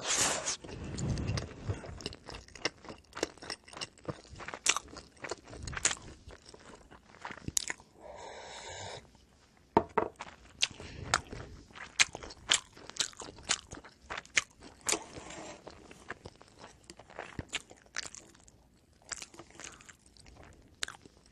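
A person chewing and biting oven-baked pizza bread close to the microphone, with many short, sharp crunching and mouth clicks.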